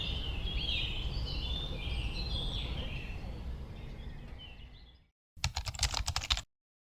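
Birds chirping over steady outdoor background noise, fading out about five seconds in. Then about a second of rapid clicking, and silence.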